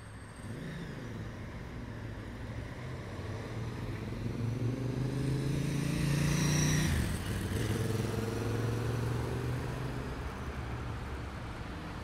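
City street traffic: a motor vehicle approaches and passes close by, its engine loudest about six and a half seconds in, the pitch dropping as it goes past, then fading into the steady hum of passing traffic.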